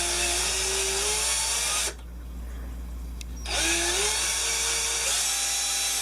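Power drill motor running slowly as its keyless chuck is spun to grip the screw shank of a scrub brush: a steady whine that stops about two seconds in, a single click, then the whine starts again, rising in pitch as it spins up.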